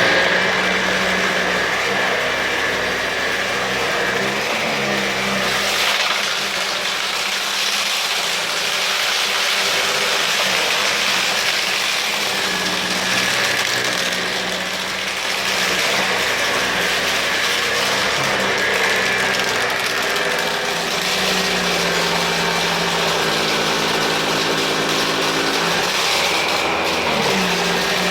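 Kärcher CV36/2 upright vacuum cleaner running steadily on carpet, picking up test debris: a constant motor hum with a steady high tone over the rush of air, the sound shifting a little every few seconds as it is worked over the carpet.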